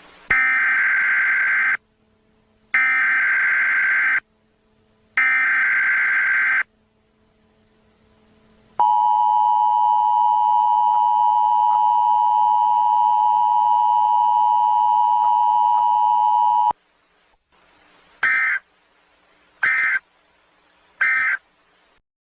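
Weather radio emergency alert sequence. Three harsh buzzing bursts of SAME header data each last about a second and a half. A steady single-pitch warning alarm tone is then held for about eight seconds. Three short end-of-message data bursts follow.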